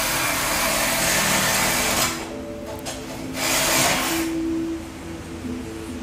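Handheld power tool running under the car in two bursts, a hissing whir: about two seconds at first, then a shorter burst about three and a half seconds in.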